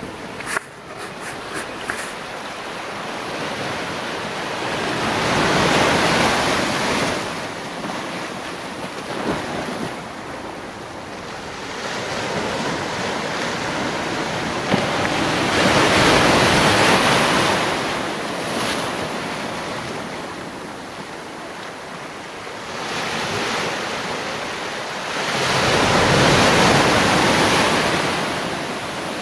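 Small sea waves breaking and washing over rocks along the shore, the surf swelling and fading three times about ten seconds apart, with wind on the microphone.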